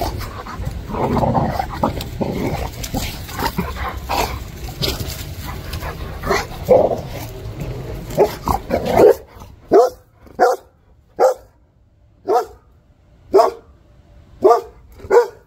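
Dog barking: about ten short, sharp barks in a row, spaced half a second to a second apart, through the second half. Before them, loud rubbing and rustling noise with scattered yips while the phone moves fast over the grass.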